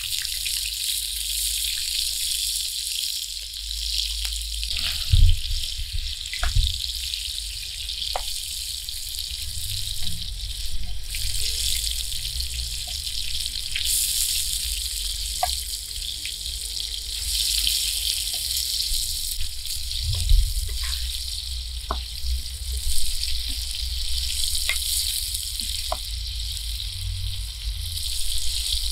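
Halved potatoes frying in oil in a wide shallow steel pan over a wood fire: a steady sizzle, with a wooden spatula now and then scraping and knocking against the pan. A few louder dull knocks come about five seconds in and again around twenty seconds.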